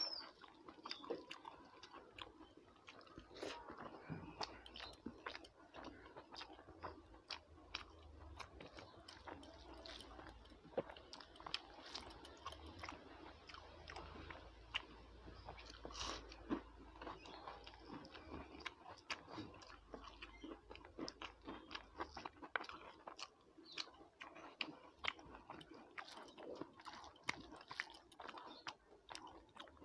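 A person chewing and biting food close to the microphone, eating rice and crisp fried pakoras by hand: a faint, irregular run of small wet mouth clicks, smacks and crunches.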